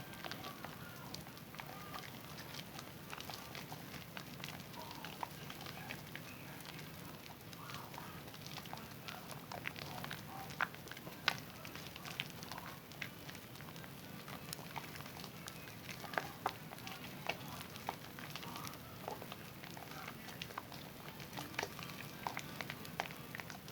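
Zest bar soap being lathered: wet squishing with a dense, irregular crackle of small clicks and pops from the suds.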